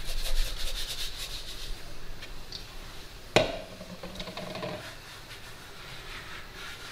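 Cinnamon-sugar shaken from a plastic cup onto rolled dough, a fine grainy patter for the first two seconds. One sharp knock comes about three and a half seconds in, then hands rubbing the sugar across the dough.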